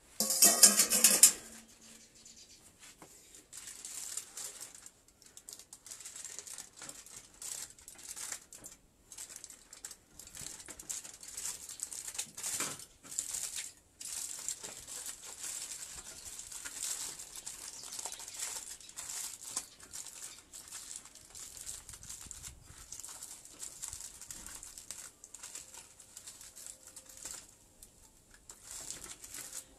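Aluminium foil crinkling and crumpling as it is folded and pressed closed by hand. There is a loud rustle in the first second and a half, then steady, irregular crackling.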